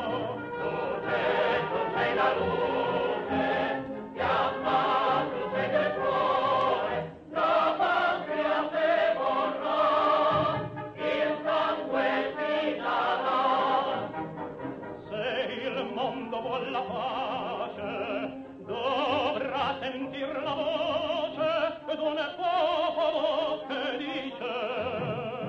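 Violin playing a slow melody with a wavering vibrato, with a brief break about seven seconds in.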